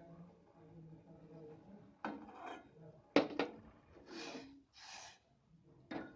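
Kitchen utensils being handled: scraping and rubbing, with a sharp knock about three seconds in and a few smaller knocks near the end.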